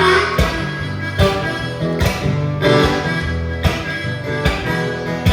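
Acoustic band playing an instrumental break: plucked guitar over a bass line, with a steady beat about every 0.8 seconds.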